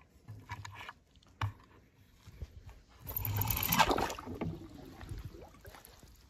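A toy school bus runs down a ramp and splashes into a tub of water about three seconds in; the splash fades into bubbling over the next second or so. A few light knocks come before it.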